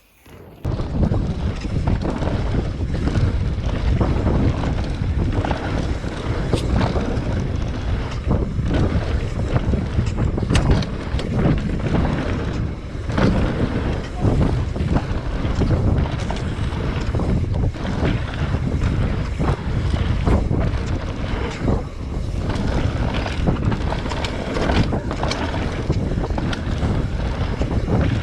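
Wind buffeting an action camera's microphone on a mountain bike descent, with tyres rumbling over the dirt trail and short knocks and rattles from the bike over bumps. It starts suddenly about half a second in.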